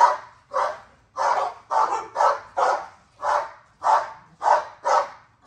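A dog barking over and over, about two loud barks a second in an even run.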